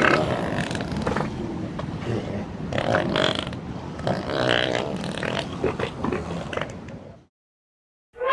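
Elephant growling: one long, rough call with a few brief higher-pitched cries over it, stopping about seven seconds in.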